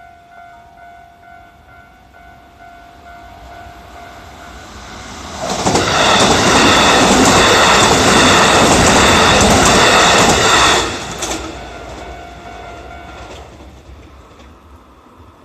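A Kintetsu 3220 series electric train passing over a level crossing, loud for about five seconds in the middle and then fading away. The crossing's warning bell rings over it, a repeating electronic tone, and stops about two seconds after the train has gone.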